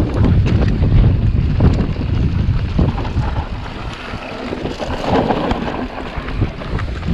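Wind buffeting the camera microphone over the rumble of a Specialized Stumpjumper 29 mountain bike descending a loose dirt trail at speed, with the tyres running over dirt and many short knocks and rattles from the bike as it goes over bumps.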